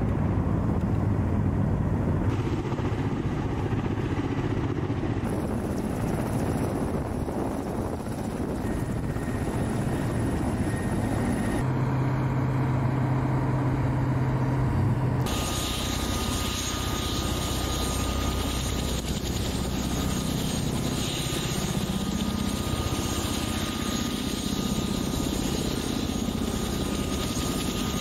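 Ka-52 attack helicopter's rotors and turbine engines running steadily. The sound changes abruptly several times, with a strong low drone in the middle and a faint steady whine in the second half.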